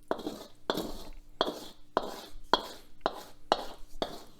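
Eating a plate of kung pao chicken over rice: a regular run of short, sharp sounds, nearly two a second, about eight in all.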